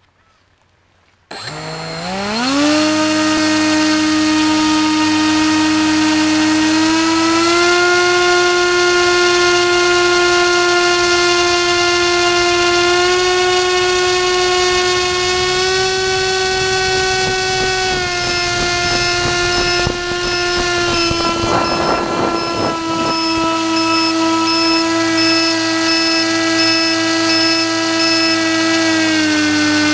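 RC airboat's motor and propeller spinning up with a rising whine, then running at a steady high-pitched whine that steps up a little as the throttle opens and drops back near the end. A short patch of rushing noise comes about twenty seconds in.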